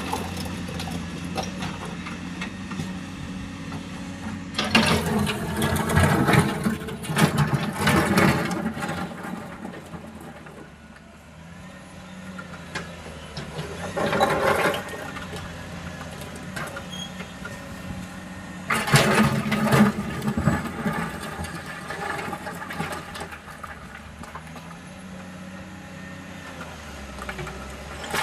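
A vehicle engine running, its pitch rising and falling, broken three times by loud stretches of clattering noise.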